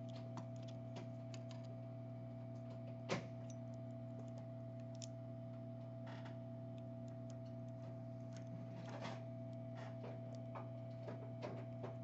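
Scattered light clicks and taps of small tools working a replacement charging port into place on a phone circuit board, with one sharper click about three seconds in, over a steady electrical hum.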